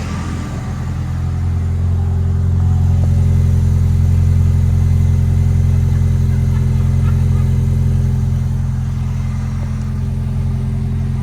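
Toyota Land Cruiser with a cat-back exhaust idling just after start-up: a steady, deep exhaust drone that swells over the first few seconds and then eases off slightly.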